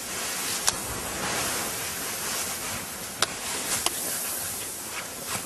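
Steady rushing hiss of a slab avalanche's snow sliding down the slope, picked up by a small camera microphone, with three sharp clicks along the way.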